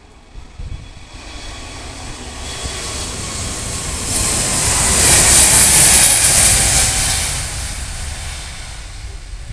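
Airbus A321neo's Pratt & Whitney PW1100G geared turbofans at takeoff thrust as the jet rolls past on its takeoff run: a jet roar that swells to its loudest about halfway through, dropping in pitch as it passes, then fades.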